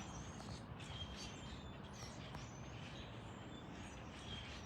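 Birds chirping, short high calls scattered several times a second or so, over a faint steady low outdoor rumble.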